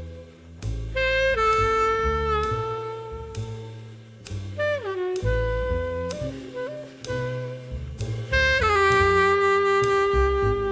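Jazz background music with a saxophone playing long held notes, some bending down in pitch, over bass and drums.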